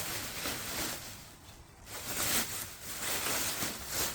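Rustling and scraping of packaging as the heavy truck bed step is handled, in several bursts with a short lull about a second in.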